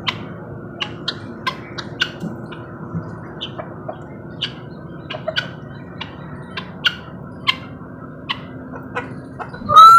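Birds chirping: many short, sharp chirps, about two a second, over a steady low background hum. A louder drawn-out call starts just before the end.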